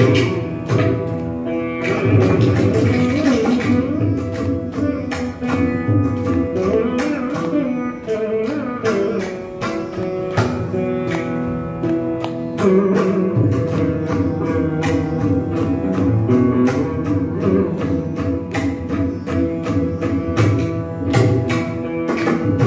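Veena playing a Carnatic composition in raga Kapi, khanda chapu tala, with mridangam and ghatam strokes keeping the rhythm.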